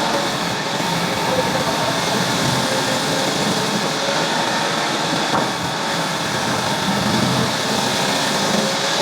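Sawmill machinery running steadily, a loud, even mechanical noise with faint steady tones in it.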